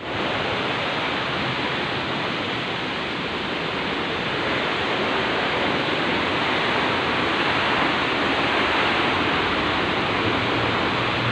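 Steady rushing of a waterfall: an even, unbroken wash of noise.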